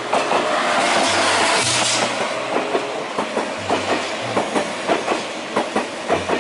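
Thalys TGV high-speed train passing close by. A rush of noise swells over the first two seconds as the power car goes past, then the carriage wheels click over the rail joints about three to four times a second.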